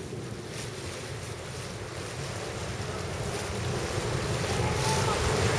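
Wind buffeting the microphone over the wash of choppy water along a yacht's hull, growing louder toward the end.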